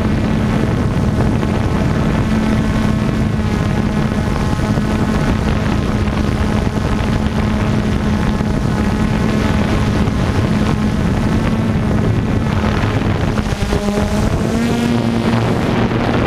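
DJI F550 hexacopter's six motors and propellers running with a steady hum, heard up close from a camera on its frame, with wind noise over it. Near the end the pitch wavers and then rises as the throttle changes.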